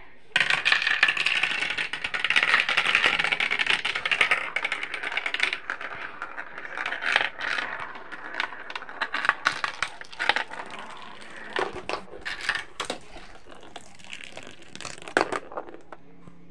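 Marbles rolling and clattering down a plastic marble run in a dense rattle for about five seconds, then scattered clicks and knocks as marbles and plastic pieces are handled.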